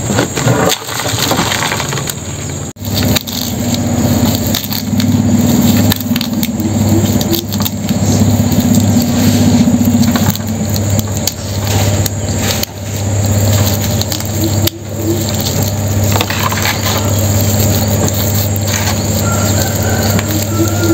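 An engine running steadily with a low hum under loud, even rushing noise, broken briefly a few times.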